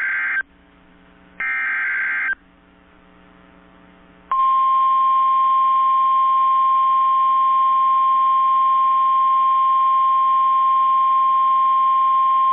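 NOAA Weather Radio emergency alert: two short buzzing bursts of SAME header data, then the steady 1050 Hz warning alert tone starts about four seconds in and holds. This signals that a new warning is about to be read.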